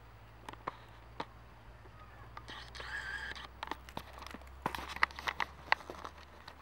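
Kittens clambering in hanging wicker baskets: a run of light clicks and crackles, sharpest about five seconds in, with a brief call about two and a half seconds in.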